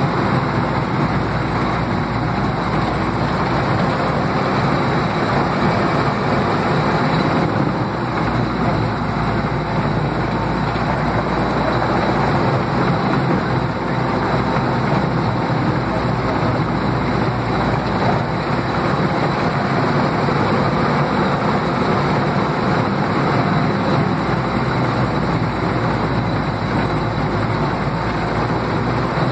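Panzer 38(t) tank's engine and tracks running steadily as it drives, heard from on board.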